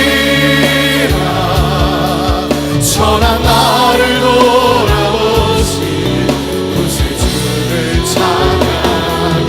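Contemporary Christian worship music: a choir of voices singing over a full band accompaniment with a steady drum beat.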